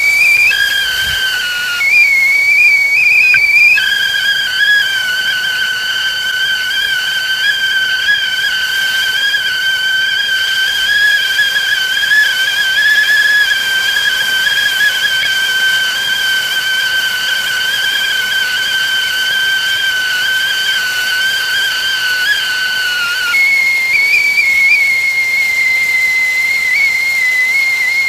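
Whistling kettle sounding at the boil: a steady shrill whistle over a light hiss of steam. It starts as one tone, changes to two notes sounding together a few seconds in, and goes back to a single, slightly lower tone about 23 seconds in.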